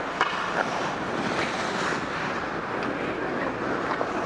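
Steady rushing noise of skating on ice: skate blades scraping the ice and air rushing over a helmet-mounted camera's microphone, with a few faint clicks.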